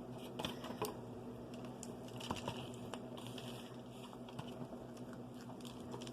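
Scattered soft clicks, taps and light rustles of takeout food and its containers being handled, over a faint steady low hum.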